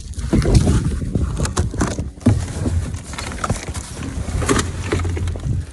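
Irregular knocks, clicks and scraping of objects being handled and shifted about in a dumpster, over a steady low rumble.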